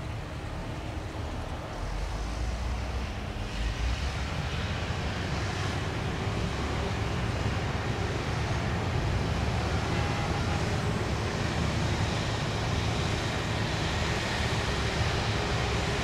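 Diesel engine of heavy road-building machinery running steadily with a low rumble, growing louder about two seconds in.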